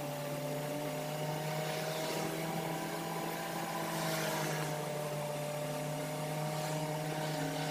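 Car's engine and road noise heard from inside the cabin while driving at a steady speed, a steady hum whose pitch drifts slightly about halfway through.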